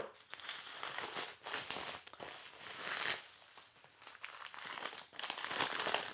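White packing paper crinkling and rustling in irregular bursts as it is pulled off a ceramic latte cup and crumpled in the hands.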